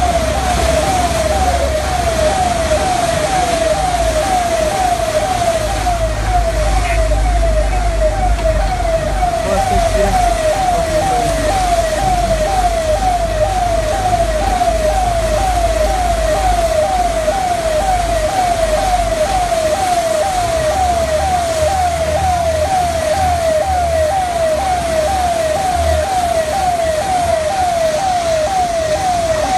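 Yelping siren tone, one quick pitch sweep repeated about two to three times a second at a steady level, over a low rumble.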